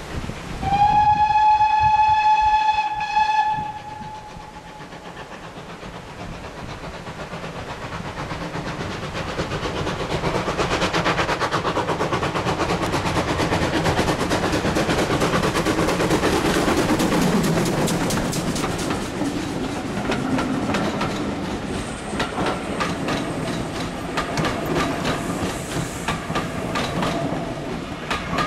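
GWR 57xx-class 0-6-0 pannier tank steam locomotive 5786 sounds one steady whistle of about three seconds. Its chuffing exhaust then grows louder as it approaches and passes. Its coaches follow with wheels clattering rhythmically over the rail joints.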